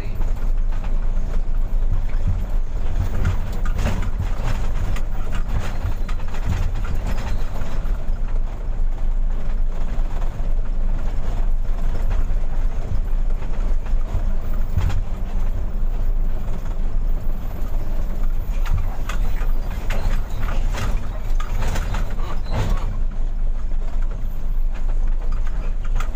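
Mitsubishi Fuso 220 PS truck's diesel engine running steadily under way, heard from inside the cab, with frequent short rattles and knocks over it.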